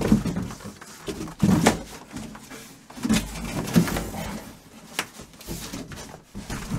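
Irregular knocks, scrapes and rustling as a large boxed item is handled and unpacked.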